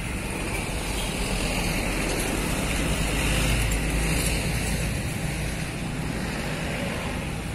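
Steady road traffic noise, a low rumble that eases about five seconds in.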